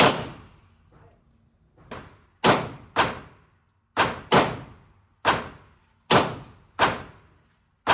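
Gunshots at an indoor shooting range: a string of about nine single shots at an uneven pace, roughly one every half second to a second, each with a short echoing tail. One shot, about two seconds in, is fainter than the rest.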